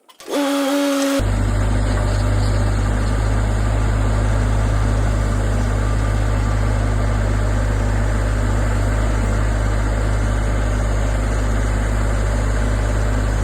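Rippa NDI665 mini skid steer's 23-horsepower diesel engine: a brief starter-like whine, then about a second in the engine is running, loud and steady without changing pitch.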